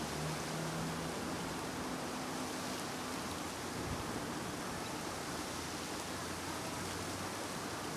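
Steady outdoor background noise: an even hiss with a faint low hum underneath.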